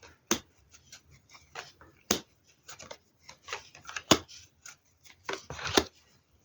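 Tarot cards being drawn from a deck and laid down on a table: an irregular run of sharp clicks and slaps, the loudest about two, four and six seconds in.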